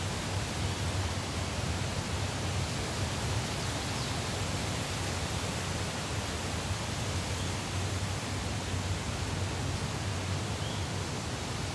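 Steady, even rushing noise with no distinct events, with a couple of faint high chirps, one about four seconds in and one near the end.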